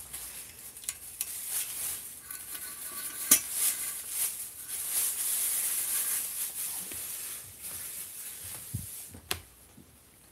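Rustling and scraping handling noise close to the microphone, with a sharp click about three seconds in and another near the end, as a trombone and its mouthpiece are handled.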